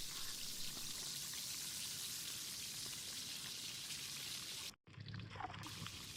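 Food deep-frying in hot oil: a steady crackling sizzle that drops out abruptly for a moment near the end, then comes back.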